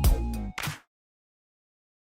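Background music with a beat that cuts off abruptly a little under a second in, leaving complete silence.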